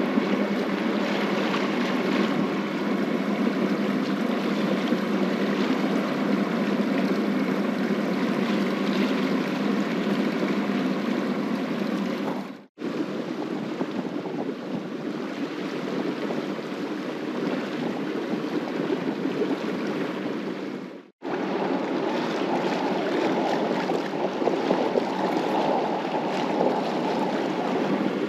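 Steady rush of water and wind on board a sailboat under way on its engine, with two brief dropouts where the footage is cut, about 13 and 21 seconds in.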